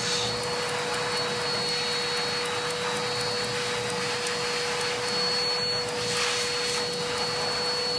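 A steady machine drone with a constant whine throughout, from an electric motor running in the grooming room. Faint thin clicks of thinning shears snipping the hair around a dog's paw sound over it.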